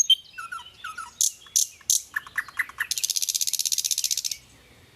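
Birdsong: a run of quick high chirps and short whistled notes, then a fast, high trill that lasts about a second and a half and stops abruptly.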